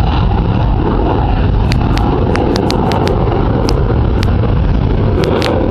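Jet noise from an F-16 Fighting Falcon's afterburning turbofan in flight overhead, loud and steady with no rise or fall.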